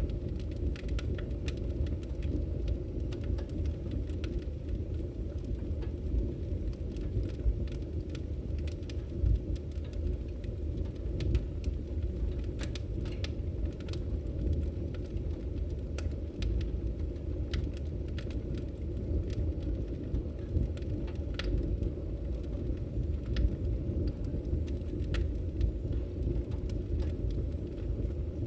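Wood fire burning in a fireplace: a steady low roar with frequent sharp, irregular crackles and pops.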